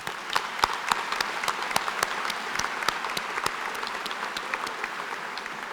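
Audience applauding: many hands clapping at once in a dense patter that begins to thin out near the end.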